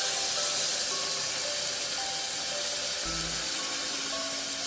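A pot of browned pork hissing and sizzling after water has been added, a steady hiss that slowly eases, under background music of short, spaced notes.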